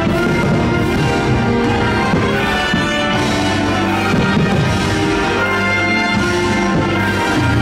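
Orchestral music with brass: a fireworks show soundtrack.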